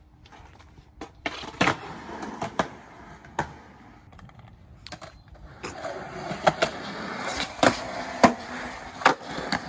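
Skateboard wheels rolling over rough pavement, with sharp clacks of the board. The rolling starts about a second in, drops off briefly in the middle, then comes back louder, with a string of clacks.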